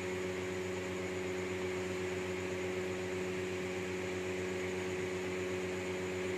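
Steady electrical hum with several held tones under a constant hiss, unchanging throughout.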